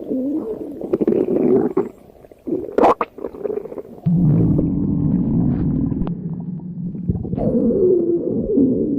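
Stomach growling loudly in a long gurgling rumble that wavers up and down in pitch, deepening into a steadier low rumble midway before wavering again. A short knock sounds about three seconds in.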